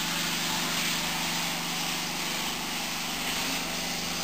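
A machine running steadily: an even engine-like hum under a constant hiss, with no change in pace.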